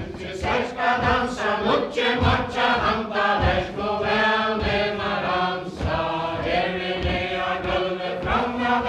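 A mixed group of men and women singing a Faroese ballad (kvæði) together, unaccompanied. Under the singing come dull low thuds of their dancing feet on the wooden floor, about one or two a second.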